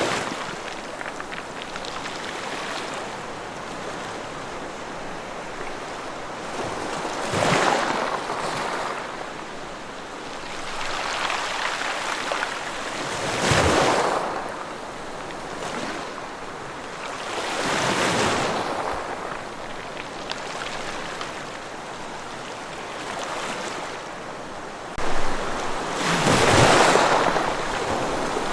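Ocean waves breaking and washing up on a shore. The surf rises and falls in surges every few seconds, with the loudest near the end.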